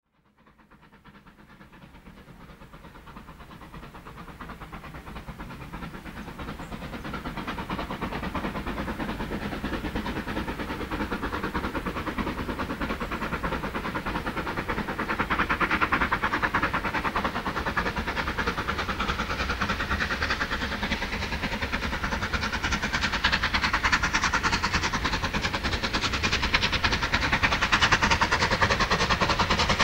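Bulleid light pacific steam locomotive 34070 Manston working a train towards the listener, its rapid exhaust beat growing steadily louder as it approaches.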